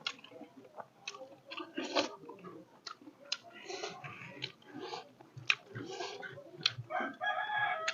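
Close-miked chewing of fish: irregular small clicks and smacks of mouth and teeth, quiet.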